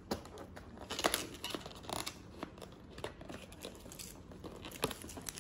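A paper gift bag and its wrapping rustling and crinkling as they are handled and opened, with scattered short tearing and crackling noises.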